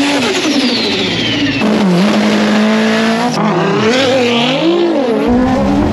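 Drag-racing cars at the strip, cut together in quick clips: engines revving, their pitch rising and falling, with a high tire screech that falls in pitch during the first second or so of a burnout. The sound changes abruptly three times where one clip cuts to the next.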